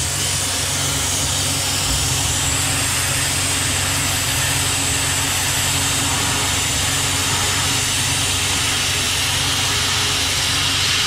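Tormach 770M CNC mill cutting 6061 aluminum with a three-flute end mill as it helixes into a hole: a steady low machine hum under a loud, even hiss of flood coolant spraying over the part.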